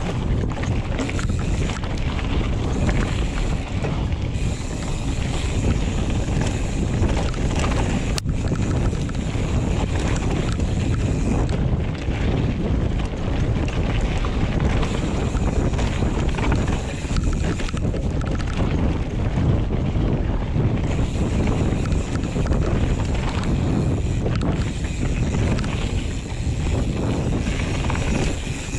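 Wind buffeting a GoPro Hero 7's microphone over the rumble of a Giant Trance X 29 mountain bike's tyres on a rough trail descent at speed, with one sharp click about eight seconds in.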